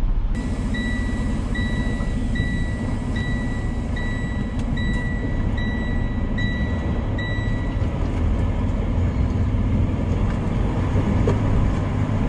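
Diesel semi-truck engine running with a steady low rumble, heard from the cab. About nine short electronic warning beeps sound evenly, a little under a second apart, and stop about eight seconds in.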